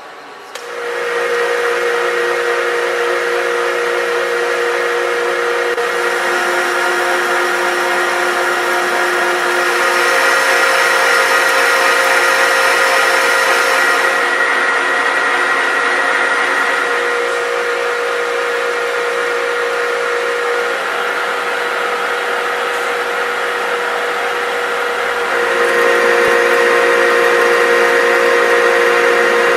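Knuth Turnado geared-head metal lathe starting up about half a second in, then running steadily with a mechanical hum and several steady tones. It gets somewhat louder twice along the way.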